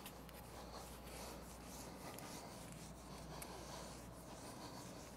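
Whiteboard eraser wiping across a whiteboard: a faint, continuous scratchy rubbing over a steady low room hum.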